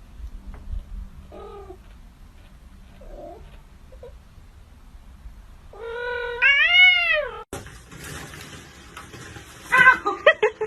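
Domestic cat meowing: a couple of faint short mews, then one long loud meow that rises and falls in pitch, cut off abruptly. Near the end comes a quick run of short loud sounds.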